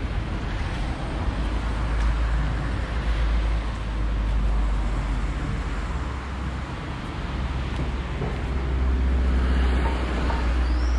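Wind buffeting the microphone, a steady low rumble over a rushing hiss that swells with a gust near the end.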